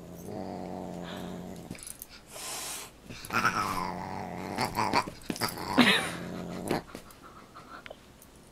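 A dog growling in a play-fight with a cat, with two higher falling cries about three and a half and six seconds in.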